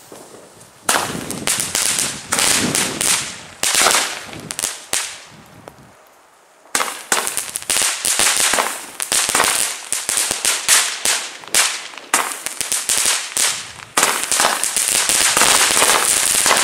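Weco Gold Stars 19-shot firework battery (11 mm comets) firing in quick succession: sharp launch pops, each followed by a hiss, starting about a second in. There is a lull of about a second and a half near the middle.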